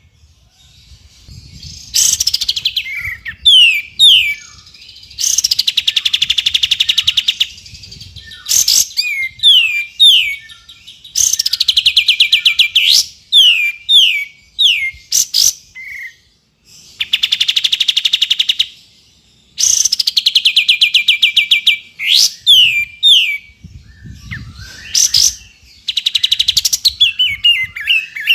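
Streak-eared bulbul (kapas tembak) calling in repeated bouts. Runs of quick, sharply falling whistled notes alternate with fast, buzzy trills about a second and a half long, with short pauses between bouts.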